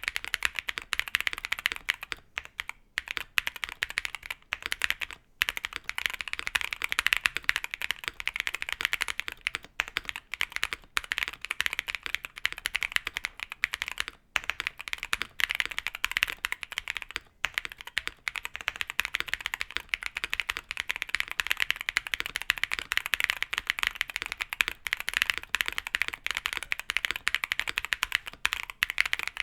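Fast, continuous typing on a mechanical keyboard with stock, unlubed JWK Quartz linear switches (UHMWPE-blend P3 stems, 63.5 g gold-plated springs), a dense run of keystroke clacks with a few short pauses.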